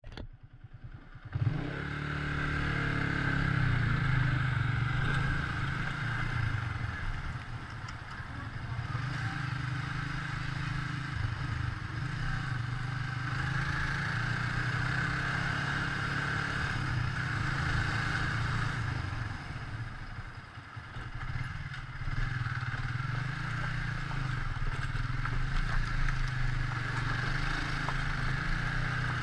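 Motorcycle engine running at low road speed over a broken, potholed gravel road, with some clatter from the rough surface. The engine sound drops back briefly twice, about a quarter of the way in and again about two-thirds in, then picks up again.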